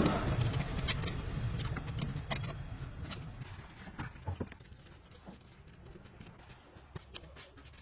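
A vehicle engine runs with a low rumble that fades away over the first four seconds or so, followed by scattered light clicks and knocks.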